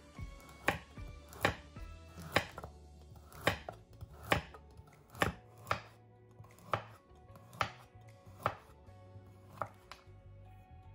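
A santoku knife slicing a carrot on a wooden cutting board. Each cut ends in a sharp knock on the board, about one a second, a dozen in all, stopping near the end.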